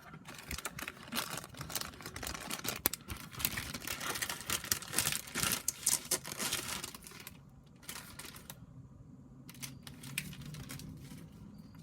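Crinkling and rustling of trading-card packaging being handled, dense and crackly for the first seven seconds or so, then quieter with a few scattered clicks.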